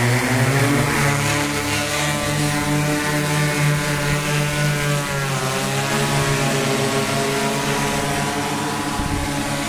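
Multirotor agricultural spray drone's propellers and motors running with a loud, steady hum of many pitches. The hum rises in pitch over the first second as the drone lifts off, then holds, with a brief dip and rise in pitch about halfway through.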